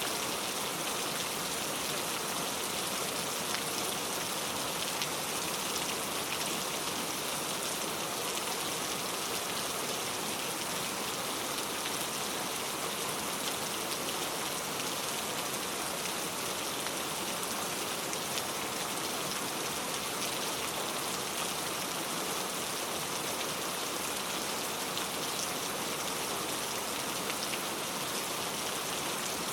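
Heavy rain falling steadily and tapping on a leaf-covered road, a dense even hiss with fine drop ticks throughout.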